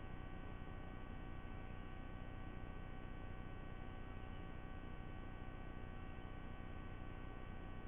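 Steady electrical hum: several faint constant tones over low background noise, with no bird calls.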